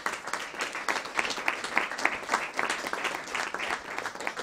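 Audience applauding: many hands clapping at once in a dense, uneven patter.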